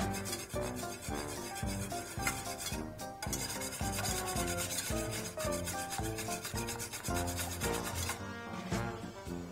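Wire balloon whisk beating egg in a stainless steel bowl, its wires scraping the metal in a fast, even rhythm that stops about eight seconds in, over background music.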